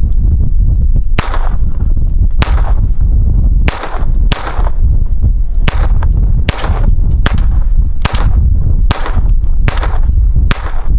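Phoenix Arms HP22 .22 LR semi-automatic pistol firing about eleven single shots, spaced roughly a second apart, each with a short echoing tail. Steady wind rumble on the microphone underneath.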